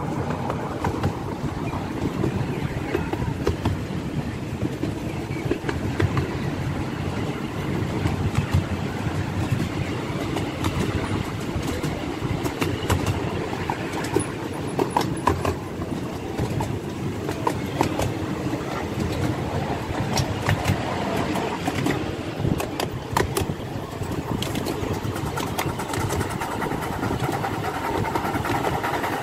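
Miniature steam train on the move, heard from the carriage behind the locomotive: a steady running rumble and clatter of wheels on track, with sharp clicks scattered through.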